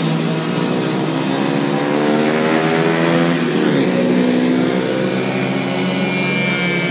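Racing mopeds' small engines running hard as they lap the track, one climbing in pitch and then dropping sharply about three and a half seconds in, with a higher-pitched whine joining near the end.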